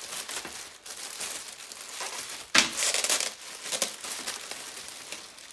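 Clear plastic bubble-wrap packaging being crinkled and pulled open by hand: continuous crackling, with a sudden loud crackle about two and a half seconds in.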